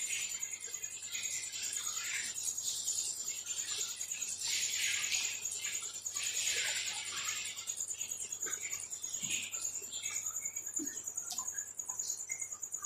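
Close-miked eating sounds: a person chewing and smacking food, with short hissy crunch and squelch bursts and small mouth clicks. A steady high-pitched tone runs underneath.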